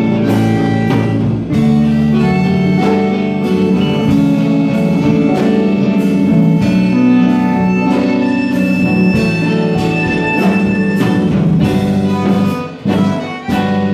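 Tango band playing live, with sustained melody lines over plucked chords. It breaks into short, separated chords with gaps between them near the end.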